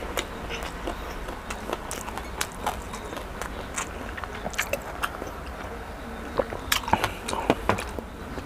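Close-miked chewing of fried chicken and rice: irregular wet mouth clicks and smacks, with a cluster of louder clicks about two-thirds of the way through.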